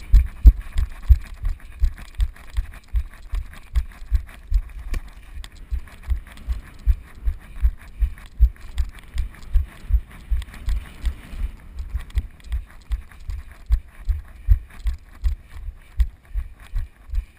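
Footfalls of the camera wearer jogging on grass, heard as dull low thuds carried through a head-strapped GoPro in its waterproof housing, in a steady rhythm of about three steps a second.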